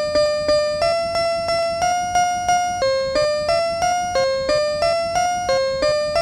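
Electronic bell-like chime tones struck about three times a second, each fading quickly, stepping up and down through a short simple melody: a level-crossing alarm ring turned into a tune.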